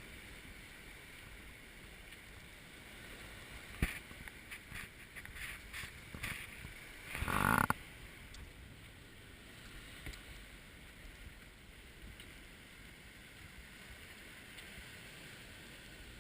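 Steady wind and water noise aboard a sailboat at sea, with a sharp knock about four seconds in, a run of lighter knocks and clicks after it, and a brief loud rush a little past seven seconds.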